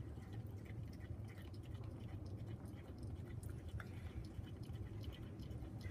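A Bengal cat chewing the remains of a thawed day-old chick: a run of faint, irregular small crunches and clicks.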